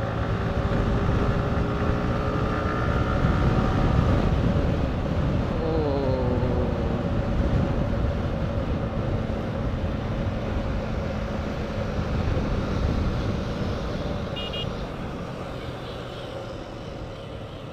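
Motorcycle being ridden on a road: steady engine and wind noise, with the engine's pitch falling about six seconds in as it slows. A short high beep sounds near the end, before the sound fades a little.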